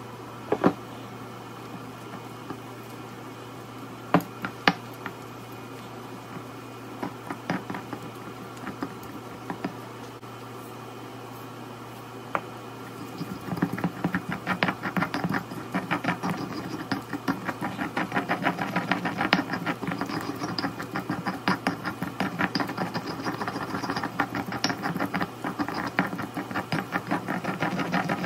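Stone pestle crushing roasted green chiles in a stone molcajete: a few separate sharp knocks in the first half, then rapid, continuous pounding and grinding strokes from about halfway on.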